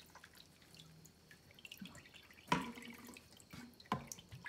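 Water dripping and splashing into a plastic basin of bath water as a soapy puppy is held over it and a cup is dipped in, with small scattered drips and two louder splashes about two and a half and four seconds in.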